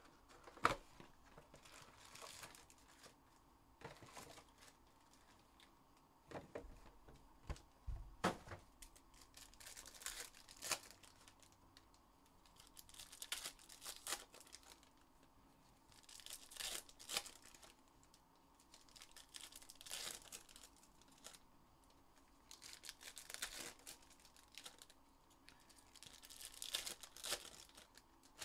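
Plastic wrapping on a sealed box of trading card packs being torn and crinkled, in short irregular bursts every few seconds, with a couple of sharp clicks.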